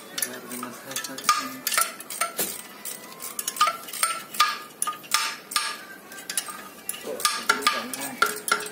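Metal clinking and scraping of hand tools against a stripped two-cylinder engine block during teardown: irregular sharp clinks, several a second, each with a short ring.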